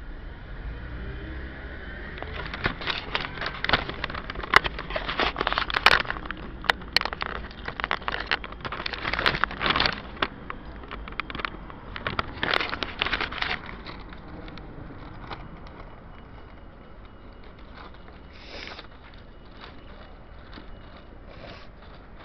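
Street traffic rumbling steadily, with heavy irregular crackling and rubbing noise on the microphone from about two seconds in until about fourteen seconds in, then quieter.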